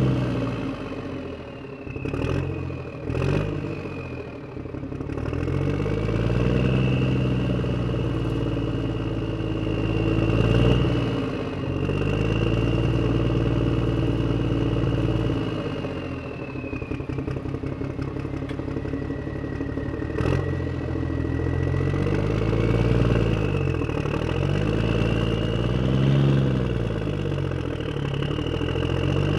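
Motor vehicle engine driving, its pitch rising and falling again and again as it revs up and eases off. A few sharp clicks come near the start and once about two-thirds through.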